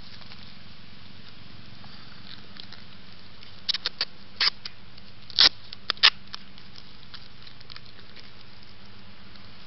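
Dry leaf litter crackling as it is disturbed right next to the microphone: a handful of short, sharp crackles bunched together a little under halfway through, over a steady faint hiss.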